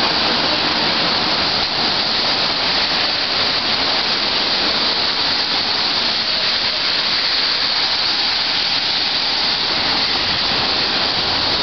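Rain falling, a steady hiss with no breaks.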